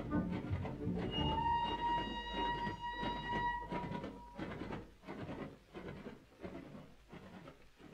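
Dapol Titfield Thunderbolt model train running along the track away from the listener, its rhythmic clicking fading as it recedes. A steady high tone is held for about two and a half seconds near the start.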